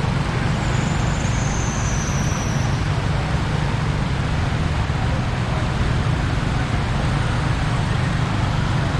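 Steady road traffic on a flooded street, with vehicle engines running continuously. A faint high whine, falling slightly in pitch, sounds from about half a second to nearly three seconds in.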